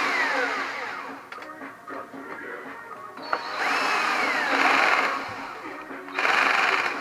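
Electric screwdriver, set to a low torque, running in three short bursts as it drives the clutch spring bolts of a KTM 640. Its whine falls in pitch as each bolt tightens.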